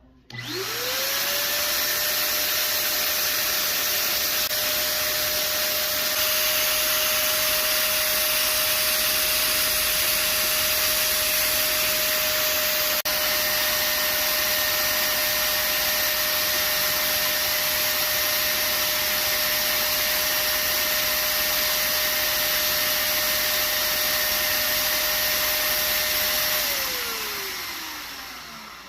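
Small DC motor of a homemade fan spinning up quickly to a steady whine with a rush of air from the blades. It runs evenly for a long stretch, then winds down with a falling pitch and fades near the end.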